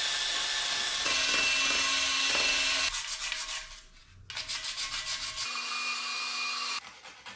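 Sanding curb rash on alloy wheels. A small cordless power sanding tool whirs steadily for about three seconds, then comes a stretch of rhythmic hand-sanding strokes, and the power tool whirs again briefly near the end.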